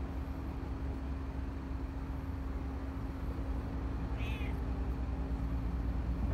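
Steady low mechanical hum, like a vehicle engine running, with one short high-pitched cat mew about four seconds in.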